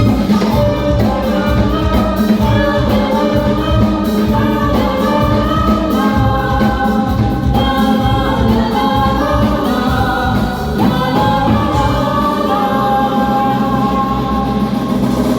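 Live band playing a Hindi film song with a chorus of voices singing over drums and bass.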